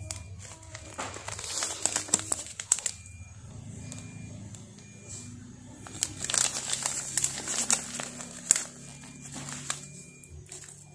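Plastic nutrient pouch crinkling and rustling as it is handled and turned over, in two spells of crackling with a quieter stretch between.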